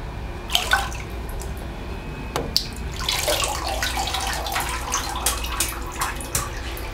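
Bathwater sloshing and splashing as a Maine Coon cat wades and shifts about in a shallow tub, reaching up to the rim. Scattered splashes at first, turning busier and denser from about three seconds in.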